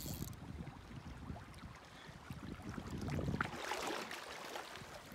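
Shallow river current rippling over a stony bed, with wind rumbling on the microphone; the water noise grows brighter and louder for about a second, some three and a half seconds in.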